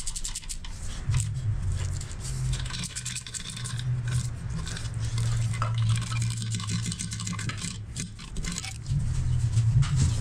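Metal clinks, knocks and scrapes of hands and tools working on an engine's parts, over a steady low hum that starts about a second in and drops out briefly near the end.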